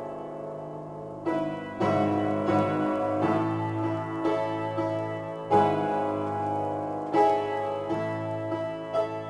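Solo piano improvisation: chords struck roughly every second and left ringing, the loudest about five and a half and seven seconds in.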